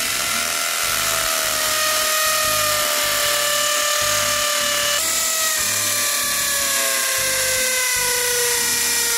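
Electric hammer drill with a masonry bit drilling steadily into brick, a continuous grinding whine that slowly drops in pitch, with a brief jump in pitch about five seconds in.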